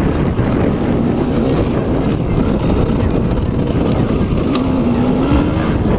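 Enduro dirt bike engine running under load over a muddy, rutted trail, its note wavering with the throttle and dipping then rising again near the end, with a few light ticks of debris.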